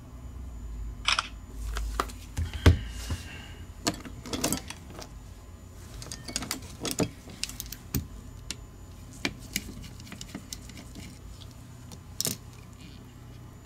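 Irregular clicks, taps and light clatter of small hand tools and plastic mouse parts being picked up and set down on a silicone work mat, during the bench disassembly of a gaming mouse.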